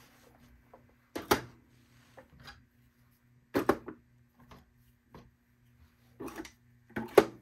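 Plastic thread cones being handled and set down onto a serger's spool pins: four separate knocks and clunks, the loudest near the end, over a faint steady hum.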